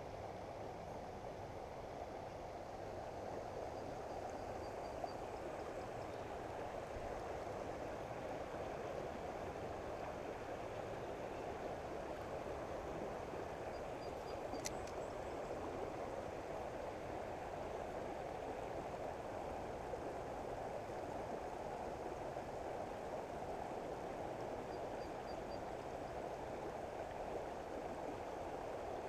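Shallow creek water rushing steadily over a low rock dam and riffle, with a single sharp click about halfway through.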